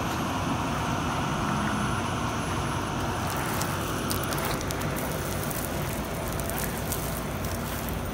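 Steady running of a rotator tow truck's heavy engine and winch dragging a submerged car through the river. Scattered small clicks and crackles join in from about three seconds in.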